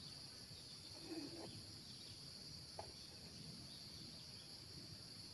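Quiet, steady high-pitched insect buzzing in the background, with a faint low sound about a second in and a small click near the three-second mark.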